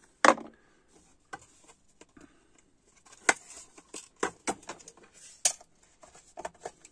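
Irregular sharp clicks and knocks of a small clear plastic organizer drawer being handled and set down on a workbench, then of a wooden case being picked up; the loudest click comes right at the start.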